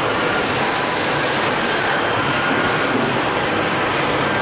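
Steady factory-floor noise of a robotic car-body assembly line: an even mechanical rush of hiss with faint high steady whines and no distinct strokes.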